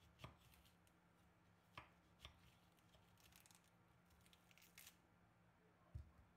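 Faint sounds of a kitchen knife slicing through a red onion on a plate: a few sharp clicks of the blade meeting the plate and light crackling as the layers are cut. A low thump near the end.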